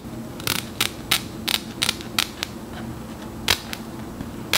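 Hair-cutting shears snipping through the lace front of a braided wig in a zigzag along the hairline: a series of sharp, irregular snips, a few a second, over a faint low hum.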